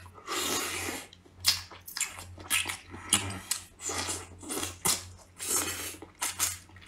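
Close-up eating sounds of a person sucking and nibbling the meat off spicy braised duck tongues: a run of short wet slurps, sucks and lip smacks, about two a second.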